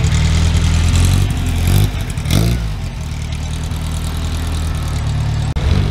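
Air-cooled flat-four engine of a classic Volkswagen Beetle running as the car drives slowly past, with a brief rise and fall in pitch about two seconds in.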